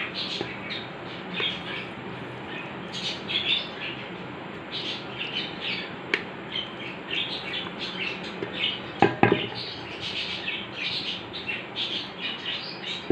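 Birds chirping over and over in the background, with a few sharp knocks about nine seconds in and one click near the middle as a wooden spoon taps and scrapes chicken masala from a metal bowl onto rice in a pot.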